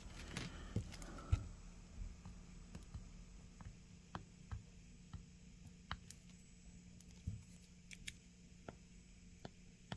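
Faint handling noise at a workbench: a brief rustle at the start, then scattered light clicks and taps of small parts and tools being handled, over a faint steady hum.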